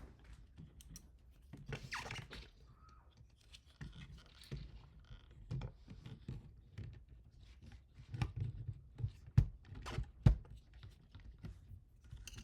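Parts and hand tools being handled while a 3D printer's Y-axis assembly is fastened to its frame: scattered clicks, scrapes and light knocks, with two sharper knocks less than a second apart late on.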